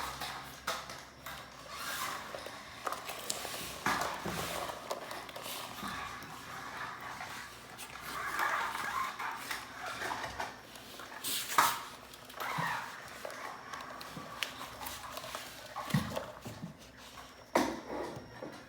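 Plastic toys being handled and set down: scattered clicks and knocks, one sharper knock about halfway through and a few more near the end.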